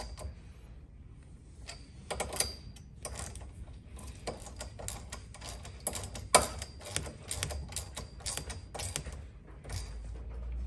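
Hand ratchet and socket clicking in irregular runs of quick clicks as M6 hex bolts are tightened into a steel bar set, with an occasional sharper metal clink.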